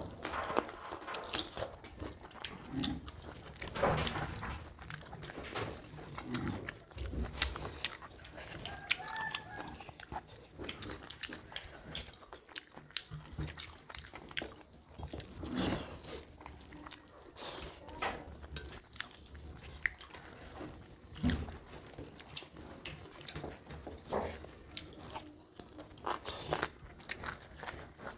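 Close-up eating sounds of two people chewing rice and egg curry eaten by hand, with irregular wet mouth clicks and smacks.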